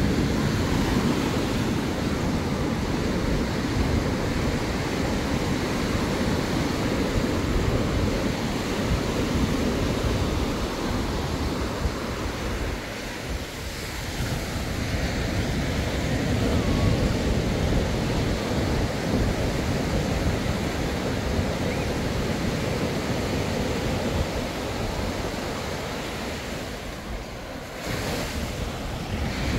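Sea surf washing onto a sandy beach, a steady rushing wash that swells and eases, with wind buffeting the microphone.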